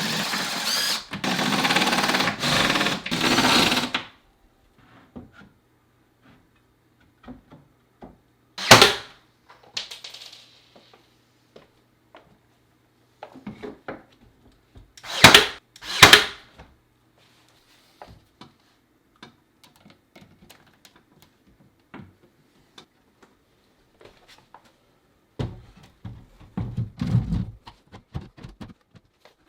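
Woodworking shop noises: a power tool runs in quick spurts for about four seconds, then scattered sharp knocks, the loudest a pair about a second apart midway, and more handling noise near the end.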